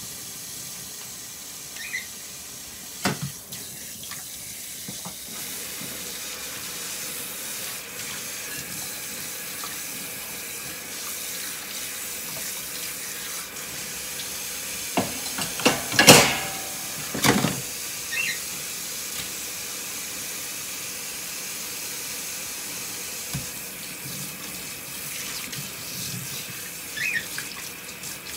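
Water running steadily from a kitchen tap, with a few sharp clattering knocks about halfway through.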